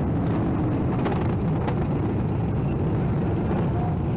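Steady low rumble of motorcycle engines.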